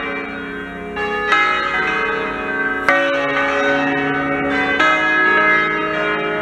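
Full peal of six bronze church bells cast by Fratelli Ottolina in 1928 and tuned in D-flat, swinging full circle. Clappers strike every second or two, and the ringing tones of several bells overlap.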